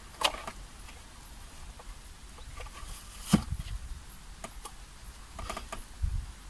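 Small cardboard parts boxes being handled in a plastic bag: scattered rustles and clicks, the sharpest about three seconds in, and a dull thump near the end.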